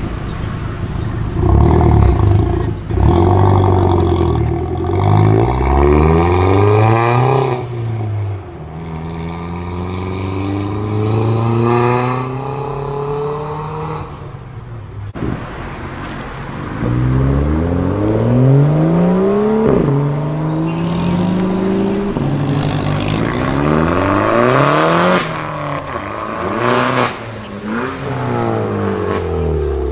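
Modified Audi A4 saloon accelerating hard away through several gears, its engine revving up and dropping in pitch at each upshift, with a sharp crack at some of the shifts. After a short lull, a second modified car, a black Opel Astra hatchback, revs up through its gears the same way as it pulls away.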